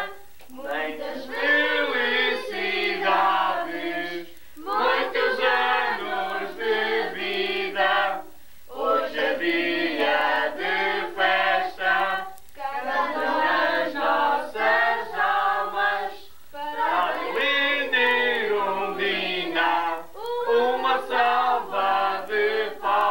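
A small group of voices, women's and men's, singing a birthday song together, phrase by phrase with short pauses for breath between lines.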